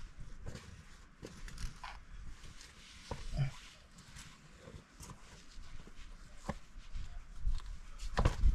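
Boots stepping over rocky ground: irregular scuffs and clicks of footsteps, with a louder cluster of knocks near the end.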